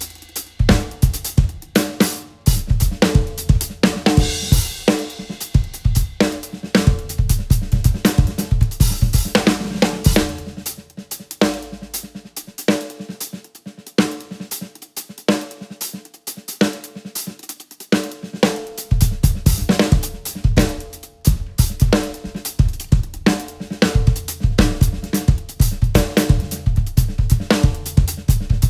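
DW acoustic drum kit played in a fast solo: rapid strokes across snare, toms, hi-hat and cymbals over bass-drum hits. About twelve seconds in the bass drum drops out for several seconds of lighter playing on the drums and cymbals, then comes back with the full kit.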